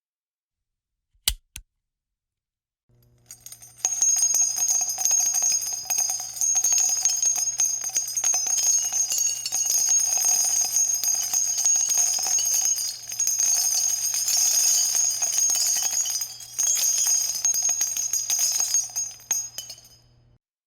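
A single sharp metallic click, then a long continuous metallic jingling rattle with a bright ringing tone. It runs for about seventeen seconds and stops abruptly near the end.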